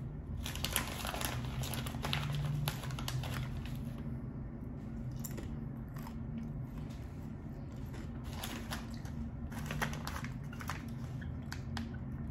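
Crunchy snack being bitten and chewed close to the microphone, in two bouts of crunching: one from about half a second in to about three seconds, the other around eight to eleven seconds. A steady low hum runs underneath.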